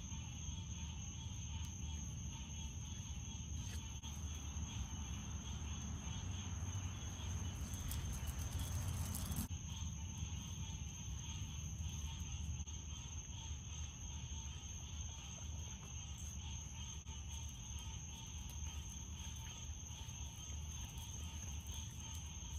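Steady chorus of crickets and other insects, a constant high trill, over a low steady hum. A short rush of hiss builds about eight seconds in and cuts off suddenly a little later.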